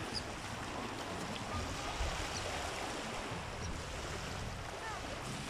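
Small waves washing onto a gravelly shore in a steady hiss, with wind rumbling on the microphone.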